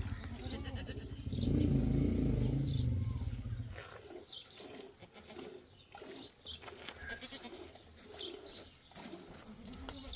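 Goats bleating over a low rumble during the first three or four seconds, then quieter, with only small scattered sounds.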